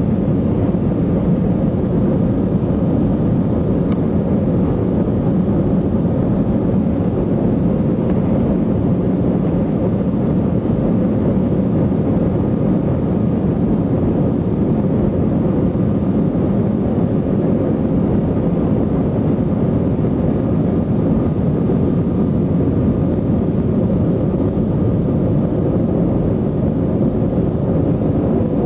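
Steady low roar of airliner cabin noise, heard from inside the passenger cabin, holding the same level and pitch throughout.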